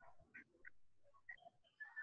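Near silence: room tone with a few faint, brief sounds.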